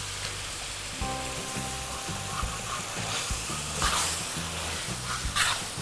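Spice paste and aromatics sizzling in a large steel wok as palm sugar is tipped in, with a metal spatula scraping the pan a few times in the second half. Background music plays underneath.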